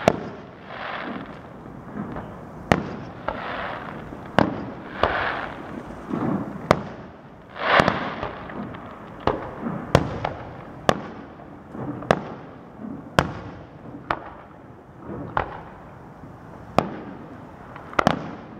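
Aerial firework shells bursting one after another, sharp bangs about once a second, with swells of hiss between some of the bangs.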